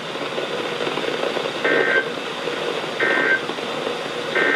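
Weather radio receiver playing three short bursts of SAME digital data tones, about a second apart, over steady radio hiss. Their shortness and their place right after a warning ends mark them as the end-of-message (NNNN) bursts that close an alert.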